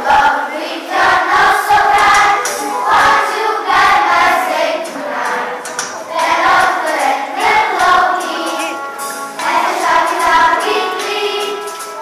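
A Christmas song with a choir singing over instrumental backing.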